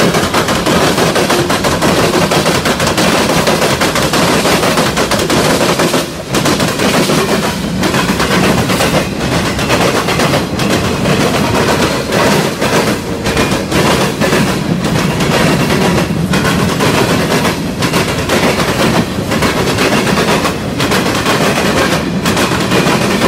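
Freight train cars (covered hoppers and tank cars) rolling past at close range: a loud, continuous rumble of steel wheels on rail, full of rapid, irregular clattering and banging.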